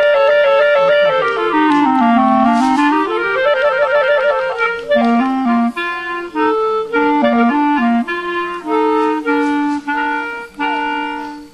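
Two woodwind instruments playing a duet in two parts: flowing runs that rise and fall together, then shorter separated notes, closing on a held final chord that dies away near the end.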